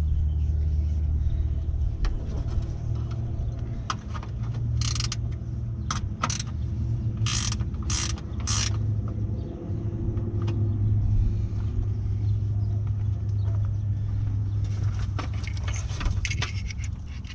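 A run of sharp clicks and snaps from hands working at the headlight mounting of a truck's engine bay, with rustling and ticking of a wiring harness near the end. A steady low rumble lies under it all.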